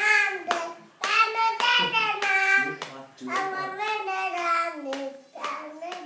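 A toddler singing in a high voice in drawn-out phrases, clapping her hands between them.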